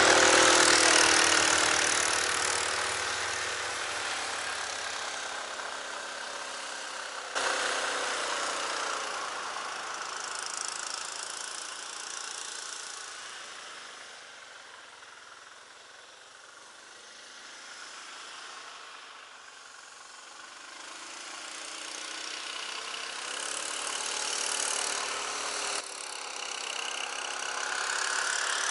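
Homemade SM-002 tracked snowmobile with a 20-hp Lifan engine driving away through deep, unpacked snow. The engine fades as it moves off into the distance, then grows louder again toward the end as the machine comes back.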